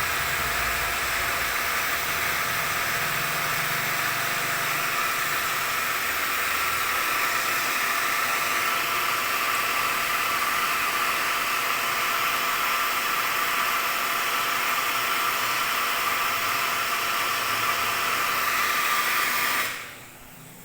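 Reverse osmosis water purification unit running: a loud, steady rushing hiss of water under pressure with a faint steady whine, which cuts off suddenly near the end as the flow is shut off.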